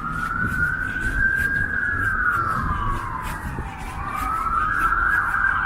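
Ambulance siren wailing in a slow rise and fall, then climbing and holding at a high pitch near the end.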